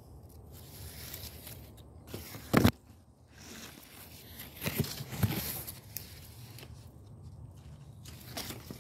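Handling noise and rustling leaves as the phone is pushed through guava foliage: one sharp knock about two and a half seconds in, then a stretch of scraping, rustling leaves around five seconds in.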